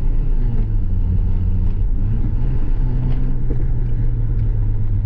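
Volkswagen Gol's carbureted CHT four-cylinder engine, fitted with a 'mini turbinho' exhaust, running at a steady cruise with a low, even drone.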